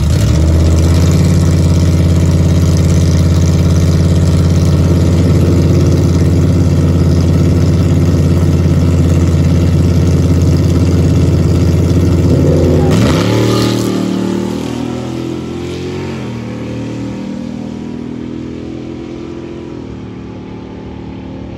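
Dodge Challenger R/T's 5.7-litre HEMI V8 held at steady, loud revs on the drag-strip starting line for about thirteen seconds. It then launches: the revs rise sharply and step up through a few gear changes as the car pulls away down the track and fades.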